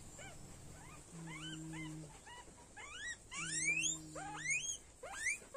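Guinea pigs wheeking: a run of short, rising squeals, several a second, overlapping most densely about three seconds in. Two low, steady hums of about a second each sound under them, about one and three and a half seconds in.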